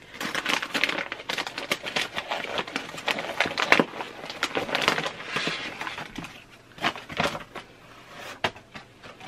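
Paper wrapping being torn and crumpled as a small package is unwrapped by hand, a dense crackling for about six seconds, then a few separate crinkles near the end.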